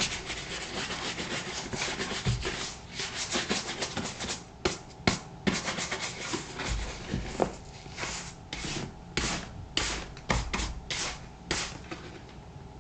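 Shoe brush bristles whisking over the black leather of a Thorogood moc toe boot to bring up a shine after creaming. The strokes are quick and close together for about four seconds, then come one at a time with short pauses.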